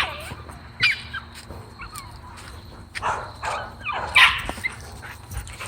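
A dog barking and yelping a few times, with short high-pitched bird calls in between.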